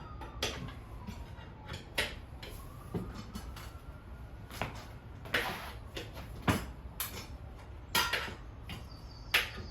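Irregular metallic clanks and knocks of tire irons working a dirt bike tire bead onto the rim, a dozen or so sharp strikes at uneven intervals, the loudest near the end.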